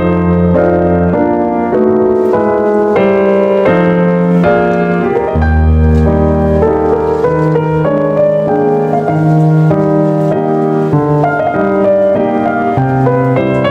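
Background music: a gentle piano piece, melody notes over held bass notes.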